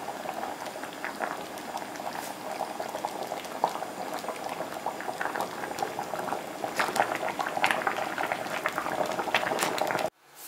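Thick gochujang tteokbokki sauce boiling in a shallow pan, a steady bubbling with many small pops. It cuts off abruptly near the end.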